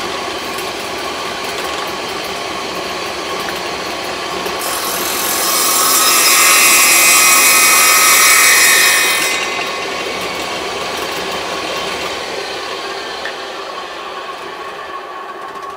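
Table saw running, its blade taking a shallow cove-cutting pass as a wooden block is fed across it at an angle along a clamped guide fence, the blade raised about a sixteenth of an inch for this pass. The cutting noise swells for about five seconds in the middle, then the saw runs on freely without load.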